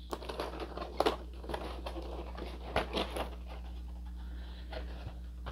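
Clear plastic packaging crinkling and clicking in short bursts as an action figure is handled and pulled from its plastic clamshell tray, over a steady low hum.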